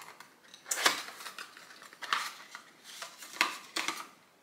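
Small cardboard gift box being opened and its contents handled: a run of short rustles and scrapes of paper and card, about five of them.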